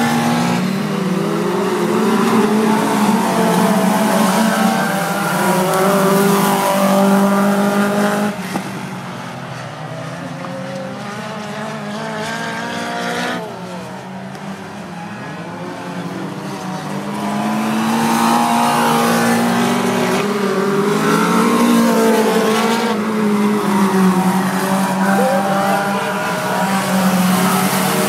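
Several racing cars' engines running hard on a circuit, held at high revs with the pitch wavering as they brake and accelerate. Loud as the cars pass close, quieter for several seconds from about a third of the way in as they run on the far side of the track, then loud again.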